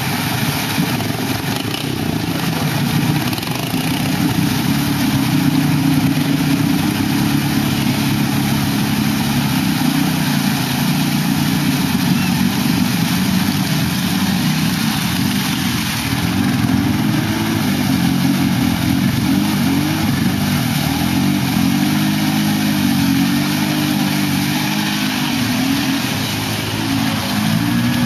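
ATV engines revving through deep mud and water, the pitch climbing and dropping again and again as the riders work the throttle.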